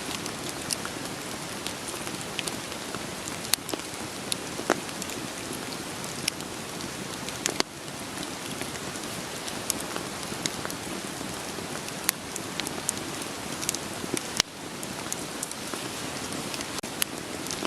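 Steady rain hissing, with the sharp crackles and pops of burning firewood scattered irregularly through it.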